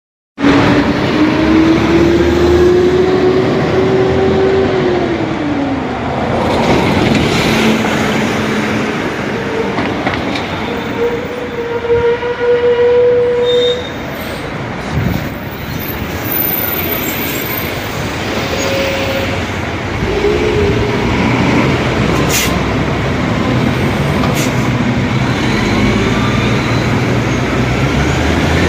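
Bus driving past with steady engine and road noise; a drivetrain whine rises in pitch over the first few seconds, then drops away.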